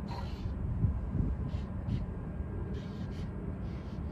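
Paint marker strokes on a freight car's steel side: a few short, scratchy strokes over a steady low rumble.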